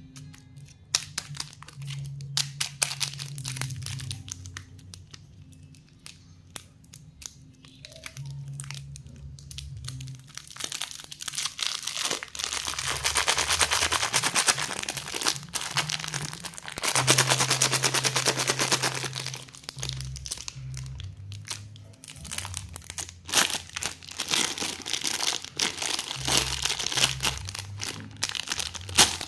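Plastic lollipop wrappers crinkling and crackling as they are handled and pulled open, with two longer, louder stretches of rustling around the middle.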